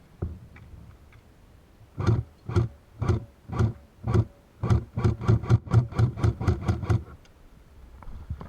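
Footsteps of the person carrying the camera: even thudding steps about two a second starting about two seconds in, quickening into a run about halfway through, and stopping about a second before the end.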